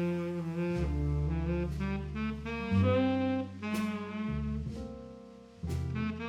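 Background jazz music: a saxophone playing held melody notes over a walking double bass, with light cymbal strokes.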